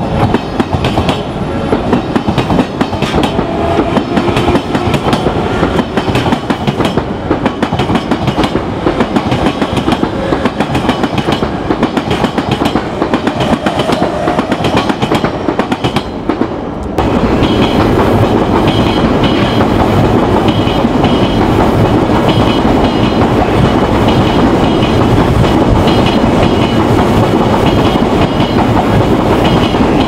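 Odakyu Line trains running over a level crossing, wheels clattering over the rail joints, with the crossing's warning bell ringing. About 17 seconds in the sound changes abruptly to a louder, steadier passing train.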